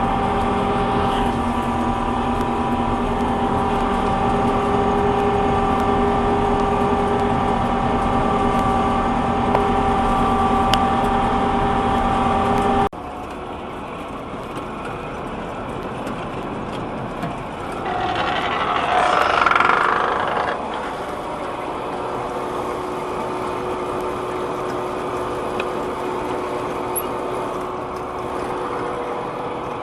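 Combine's diesel engine running steadily just after being started, a hum of several steady tones. About thirteen seconds in it drops abruptly to a quieter, rougher engine sound, with a brief louder rushing swell a few seconds later.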